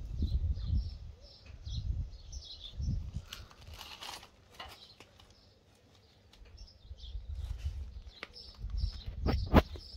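Birds chirping over and over in the background, over low rumbling on the microphone that comes and goes. A couple of sharp knocks near the end.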